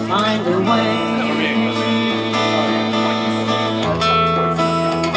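Steel-string acoustic guitar strummed in a slow blues, the chord changing about four seconds in.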